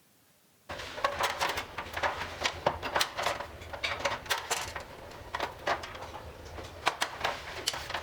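Metal stove burner parts and copper pipe being handled: a dense run of irregular clicks, knocks and light clatter that starts about a second in.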